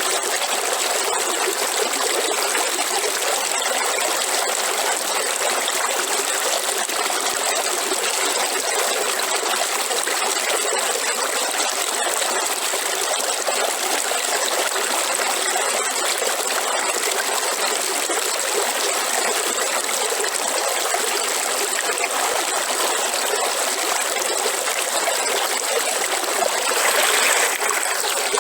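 River water running: a steady, even rush of flowing and trickling water, swelling briefly louder near the end.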